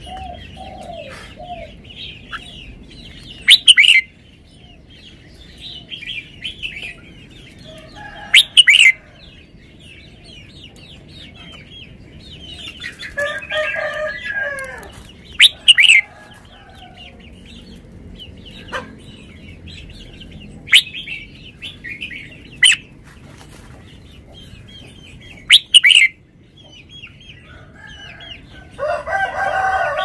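Caged red-whiskered bulbul singing short, loud, sharp phrases every few seconds, over a steady background chatter of other birds.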